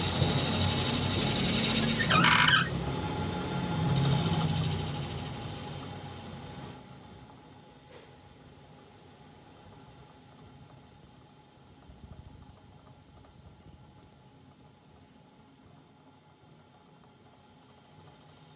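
A steady high-pitched squeal. It breaks off about two seconds in, comes back about two seconds later, and cuts off sharply near the end.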